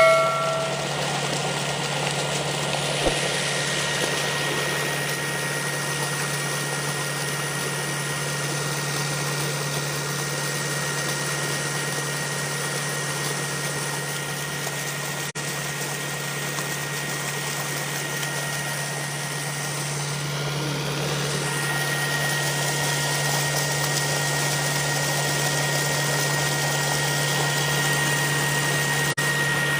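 Tractor engine running steadily, driving a tubewell turbine pump, over the rush of water pouring from the discharge pipe into the pond.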